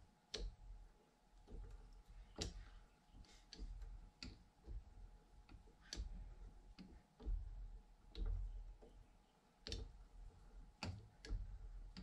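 A hand tap being turned with a tap wrench into an aluminium cocking knob held in a vise, cutting threads: faint, irregular clicks and ticks as the tap bites and the wrench is worked back and forth.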